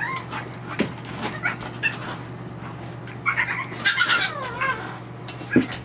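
French bulldog puppy whining in high, wavering cries: a few short ones early, then a longer run of falling whines about three to four and a half seconds in.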